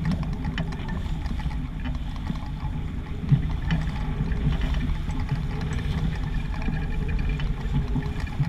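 Wind buffeting the microphone and water rushing past the hull of a sailboat under way, a steady low rumble, with one sharp knock about three seconds in.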